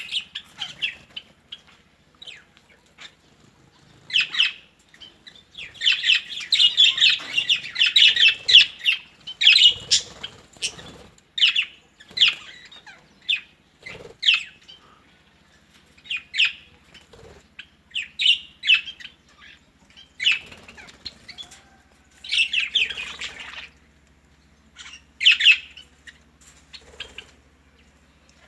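Birds calling: short, harsh squawks and chirps in irregular bouts, with a dense run of overlapping calls about a quarter of the way in.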